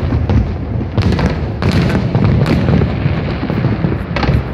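Aerial fireworks bursting: a continuous low rumble of booms, with several sharp cracks spaced about a second apart.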